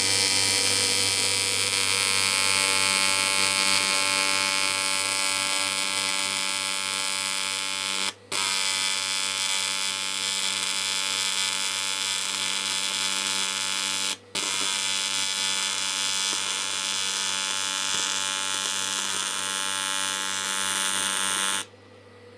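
AC TIG welding arc from an R-Tech 261 AC/DC inverter TIG welder on clean aluminium box section, set to 150 amps on its easy-set settings, giving a steady buzzing hum. The arc drops out briefly twice in the middle and stops shortly before the end.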